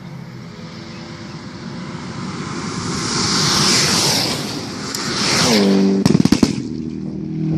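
A car approaching and passing at speed: the sound swells, then the engine note drops as it goes by. A quick run of sharp cracks follows about six seconds in, then a steady low hum.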